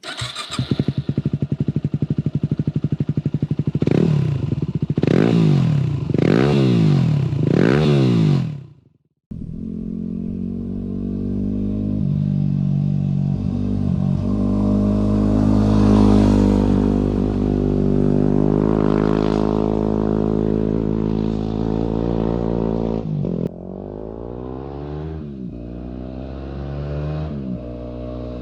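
Yamaha WR250R's single-cylinder 250 cc engine, breathing through an FMF Power Core 4 exhaust with the spark arrestor removed, starting up and idling, then revved four times in quick succession. After a brief break it runs steadily, swells in the middle, and is blipped a few more times near the end.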